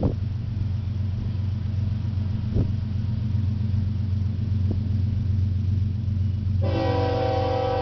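Approaching diesel freight locomotive running with a steady low rumble; near the end its air horn starts sounding, one sustained chord.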